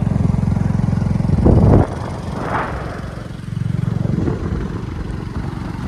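Motorcycle engine running steadily while riding, with wind rushing on the microphone; a loud gust about one and a half seconds in. The engine sound drops for a second or so near the middle, then picks up again.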